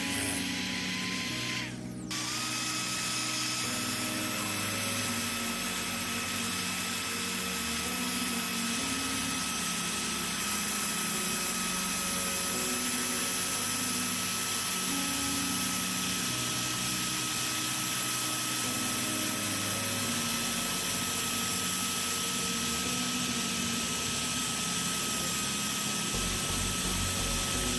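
Electric drill spinning a small wire cup brush against a rusty steel blade, scouring off rust: a steady high motor whine over a rough scratching hiss. It drops briefly about two seconds in, then runs on evenly.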